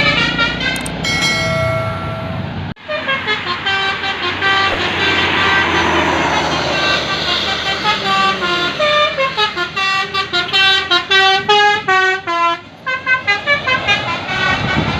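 Indonesian bus 'telolet' multi-tone musical horns: a held chord, then quick runs of short horn notes stepping up and down in pitch, repeated over and over. The sound breaks off sharply for an instant about three seconds in.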